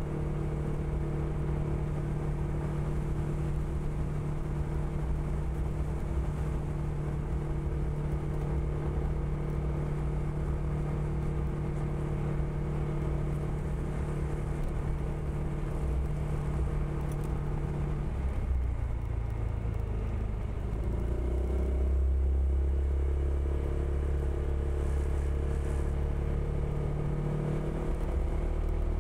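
Honda PCX160 scooter's single-cylinder engine running steadily on the move; about eighteen seconds in its pitch dips, then climbs back, and it runs a little louder from about twenty-two seconds.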